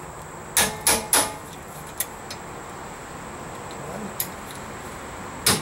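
Hammer blows on a hand impact driver set in a brake rotor retaining screw: three sharp metallic knocks in quick succession about half a second in, a few light taps, then another knock near the end, striking to break the screw loose.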